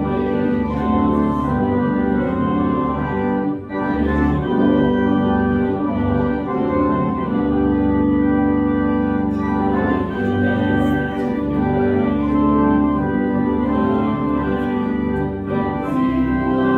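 Church organ playing sustained chords, with a short break between phrases about four seconds in.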